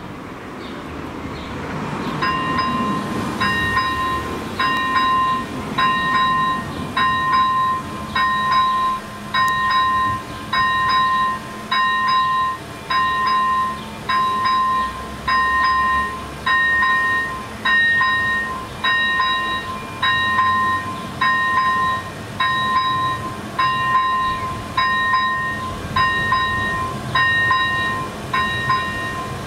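Electronic level-crossing bell (ZV-01 e-bell) starting about two seconds in, then dinging steadily about once a second as the crossing warns of an approaching train.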